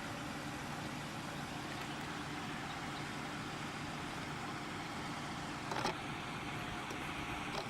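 An engine idling steadily, with two brief knocks, one about six seconds in and one near the end.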